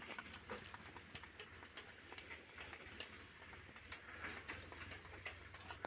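Faint footsteps on a brick-paved path, a soft tick roughly every second, over a faint low hum.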